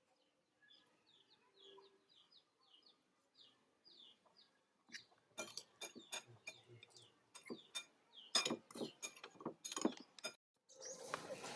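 Small birds chirping in short, repeated chirps, followed about halfway through by a rapid series of sharp knocks and clicks that stop suddenly; a dense rustling noise starts near the end.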